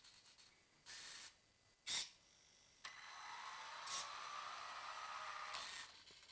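A brief burst of noise and a sharp click, then about three seconds of a steady whirr with a thin high whine running through it, which cuts off near the end: an electric RC buggy's motor and drivetrain running.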